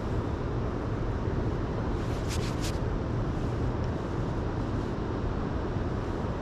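Steady low outdoor rumble, with two short sharp ticks about two and a half seconds in.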